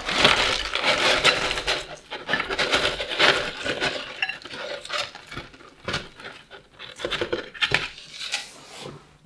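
Fried chicken wings tipped from a cardboard bucket into a ceramic bowl: scraping and rustling with many small knocks and clinks against the bowl. It is busiest in the first couple of seconds, then thins to scattered knocks before stopping.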